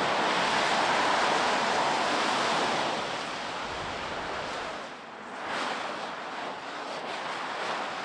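Steady hiss of car tyres on a rain-soaked highway, with wind on the microphone. About three seconds in the hiss drops and turns patchier.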